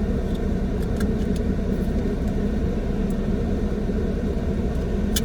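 Car engine idling with a steady low rumble, with a few faint clicks over it.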